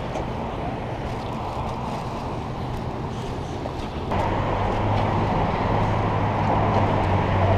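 Steady city traffic noise with no clear single event; about four seconds in the sound jumps louder and a low steady hum joins it.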